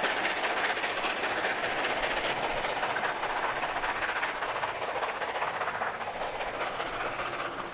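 Recorded sound of a real steam locomotive and its train running steadily, a continuous hiss and rumble that eases slightly near the end.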